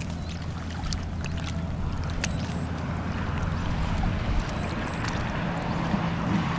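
A small engine hums steadily at an even pitch, with a hiss that grows louder partway through and a few faint clicks.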